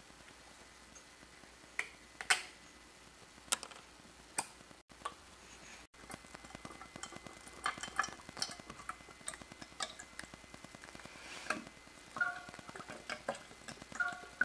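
A few light plastic clicks from handling a plastic water bottle, then, from about halfway, a faint trickling crackle of water poured from the upturned bottle into a clear plastic cup.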